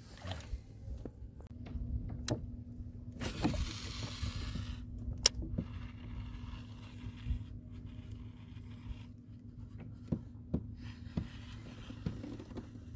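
Fishing tackle handled in a kayak: scattered clicks and knocks of the baitcasting reel and rod, one sharp click about five seconds in, and a brief hiss a few seconds in. Under it run a steady low hum and a rumbling low noise.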